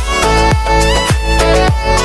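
Background music with a steady beat, a strong bass and a melody line over it.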